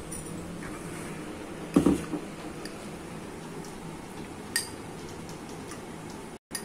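A spoon stirring a bowl of chopped vegetables, chicken and mayonnaise, knocking against the bowl: a clatter about two seconds in and a lighter click later, over a steady low hum.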